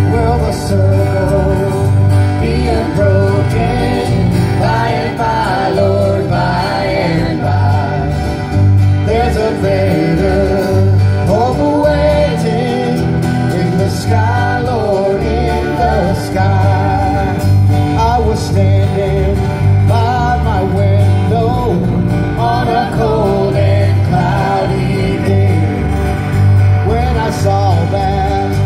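Live country-gospel band playing: acoustic guitars strumming, an electric bass walking a steady bass line and congas, with a melody line over the top throughout.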